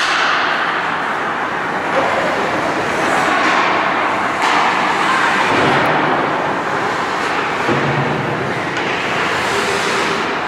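Ice hockey play on a rink: a steady hiss of skates scraping and carving the ice, rising in a few short surges, with faint voices under it.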